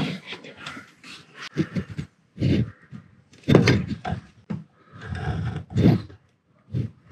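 A few short vocal sounds, grunts or mutters, between short stretches of quieter clicks and knocks.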